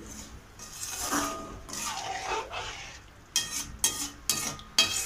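A perforated metal skimmer spoon stirring vermicelli in water in a metal wok: two longer scraping strokes across the pan, then about four sharp metallic clinks in the second half as the spoon knocks against the pan.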